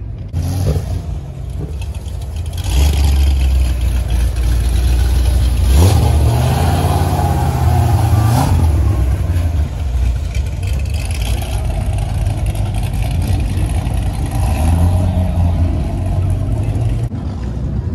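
Performance car V8 engines idling and revving. Around the middle, a Corvette ZR1's supercharged V8 revs up as it rolls close past, then a steadier engine rumble follows.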